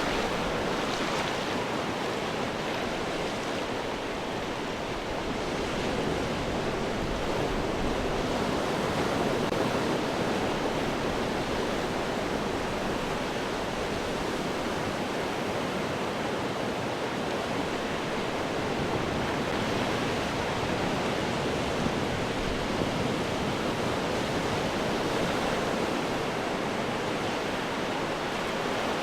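Ocean waves crashing on rocks: a continuous wash of surf noise that swells and eases every few seconds.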